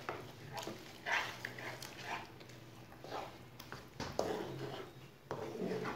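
Wooden spoon stirring a thick, wet mix of grated coconut and milk in a nonstick frying pan: soft scraping and squelching strokes about once a second.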